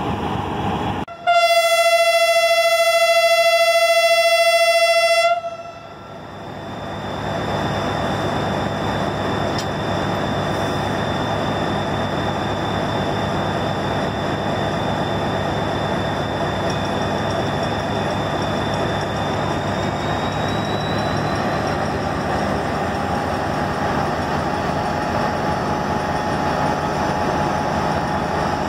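Pakistan Railways HGMU-30 diesel locomotive no. 8212 sounds its horn in one loud, steady blast of about four seconds, starting about a second in. After the horn its diesel engine runs on steadily, with a faint high whine that rises slightly later on.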